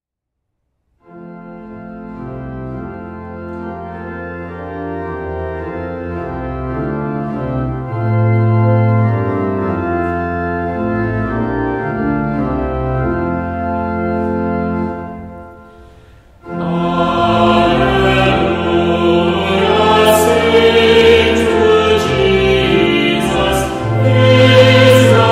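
Pipe-organ style introduction of held chords starting about a second in and fading out after about fifteen seconds; then a choir begins singing a hymn with organ accompaniment, louder than the introduction.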